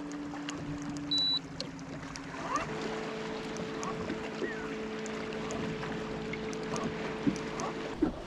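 Electric bow-mounted trolling motor humming steadily, stepping up to a higher pitch about two and a half seconds in and cutting off near the end. A short high electronic beep sounds about a second in.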